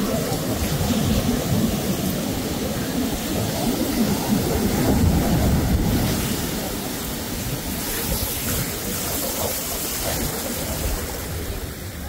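Ocean surf washing up the beach: a steady rushing that swells about four to six seconds in and eases off toward the end.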